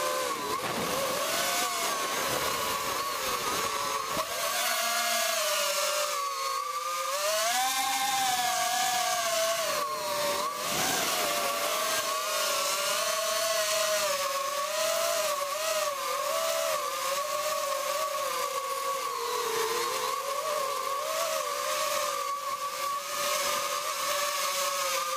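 Quadcopter drone's electric motors and propellers whining in flight over a steady hiss, the pitch rising and falling as the throttle changes.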